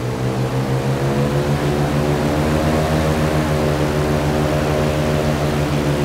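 Hovercraft engine and propeller running steadily at speed, its pitch rising a little toward the middle and easing back slightly.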